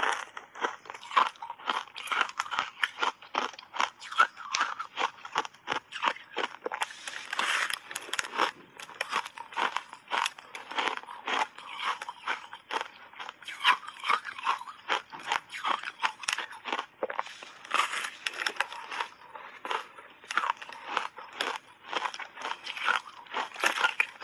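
Close-miked biting and chewing of reshaped ice (packed, refrozen crushed ice) coated in matcha powder: a dense, continuous run of crisp crunches, several a second.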